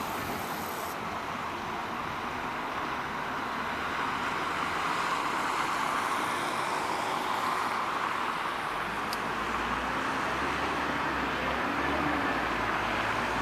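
LVS-86K articulated tram running along the track with a steady rolling noise. A low rumble joins past the middle and the sound grows slightly louder toward the end, with one short click about nine seconds in.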